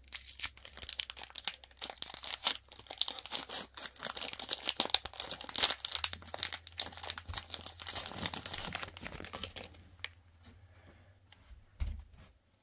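Plastic wrapper of a Donruss Racing trading-card value pack being torn open and crinkled, a dense crackling for about ten seconds that then dies away, with a soft thump near the end.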